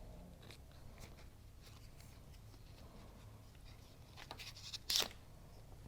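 Cutting the paper backing off a vinyl decal: faint light ticks and rustles of the backing being handled and cut, with one short, louder rasp about five seconds in.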